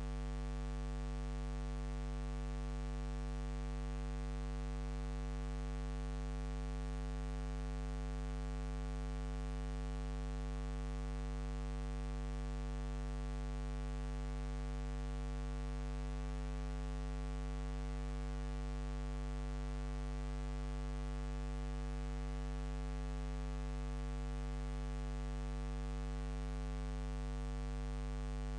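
Steady electrical mains hum with a layer of hiss, unchanging throughout and with no sound from the filmed scene: the hum of a silent home movie's transfer rather than anything on location.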